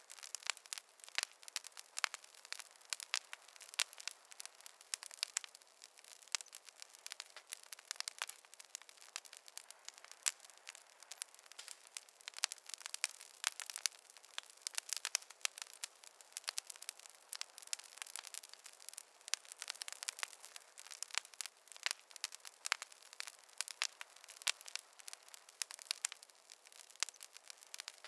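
Campfire crackling: a dense, irregular stream of sharp pops and snaps over a faint hiss, thin with no low rumble.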